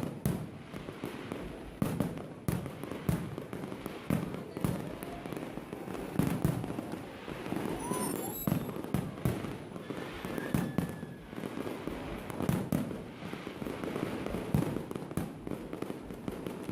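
Fireworks display going off: a rapid, irregular series of bangs and crackling bursts.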